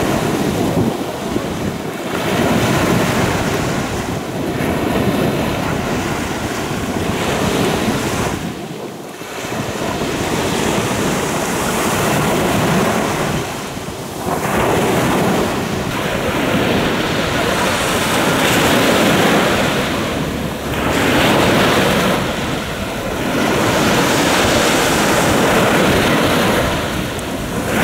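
Sea surf breaking on the shore, swelling and easing every few seconds, with wind buffeting the microphone.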